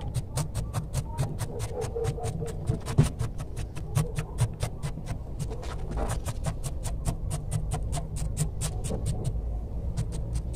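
A wooden chopstick jabs repeatedly into volcanic gravel in a plastic colander pot, working the substrate down among the roots of a repotted bonsai. The small stones click and rattle about five times a second, thinning out near the end, over a low steady rumble.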